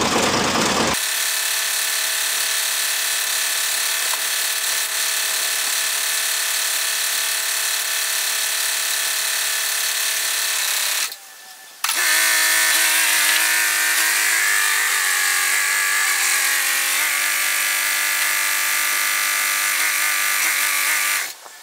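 Loader tractor engine running with a steady, high-pitched whine. It drops out briefly about eleven seconds in, comes back with a wavering pitch, and cuts off near the end.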